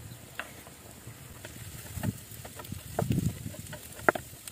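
Beef and onions dusted with flour sizzling in a frying pan over a wood fire, frying the flour, with a few sharp knocks as a wooden spatula stirs and strikes the pan, the loudest near the end.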